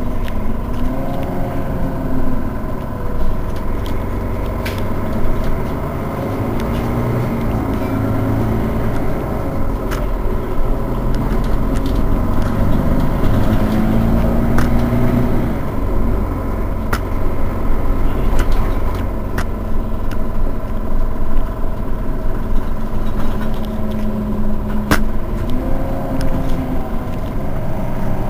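Mercedes-Benz Citaro facelift city bus's diesel engine idling steadily with the bus standing still: a continuous low rumble under a steady high whine, with a few sharp clicks.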